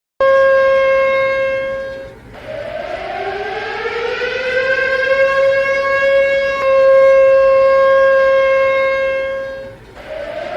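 Civil-defence-style siren wailing. It cuts in abruptly on a steady tone that fades away about two seconds in, then winds up in pitch and holds. Near the end it dies down and begins to wind up again.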